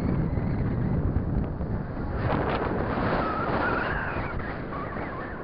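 Wind buffeting the microphone, with a fainter whine from the foam RC de Havilland DH.88 Comet's twin electric motors and propellers, wavering up and down in pitch from about two seconds in as the plane flies overhead.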